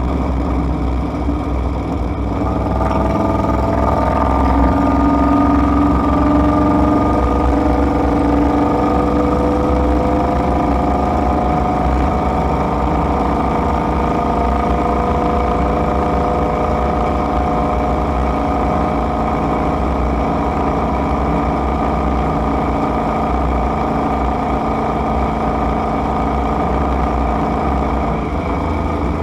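Inside the cabin of an Ineos Grenadier on the move: a steady low road rumble with engine tones that come in and slowly climb about three seconds in, then hold level; a few of the tones drop away near the end.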